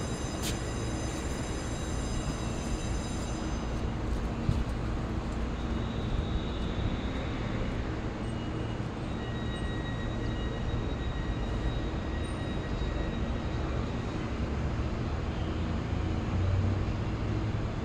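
EMU3000 electric multiple-unit express train standing at the platform, giving a steady low hum and rumble, with faint high steady tones joining in about five seconds in.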